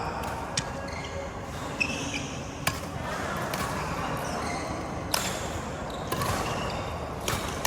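Badminton rally: about five sharp cracks of rackets striking the shuttlecock at uneven intervals, with short squeaks of shoes on the court.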